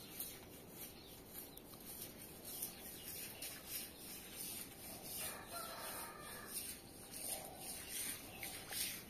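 A chicken gives one call lasting about a second, about five seconds in, with a fainter sound a little later. Underneath is the soft rubbing swish of a string mop pushed back and forth over wet stone tiles.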